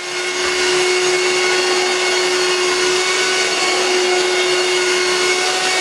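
TDL VC 638WP vacuum cleaner running, coming up to full speed in the first half second and then holding a steady whirring with one strong steady tone.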